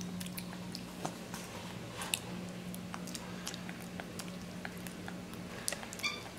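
Capuchin monkey chewing and smacking on a mouthful of oatmeal, small wet clicks scattered irregularly, over a steady low hum. A brief squeak near the end.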